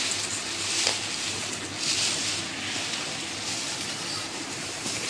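Plastic packaging rustling and crinkling as it is handled and pulled open, in uneven waves with a few small clicks.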